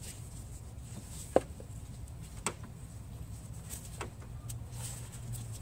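A few sharp clicks and light knocks from hands pushing a rubber hose and its clamp onto the aluminium oil separator's fitting, one click standing out about a second and a half in. A steady low hum runs underneath.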